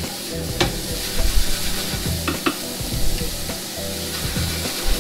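Brussels sprouts and bacon sizzling in a hot frying pan as they are tossed and stirred with a wooden spatula, with a few sharp clicks about half a second in and twice near the middle.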